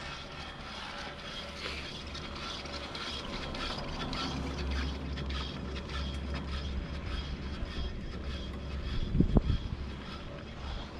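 Riblet double chairlift heard from the chair: the haul rope running over the tower sheaves and line, a steady rumble with a scatter of clicks and faint steady tones. A few heavy low thumps come about nine seconds in.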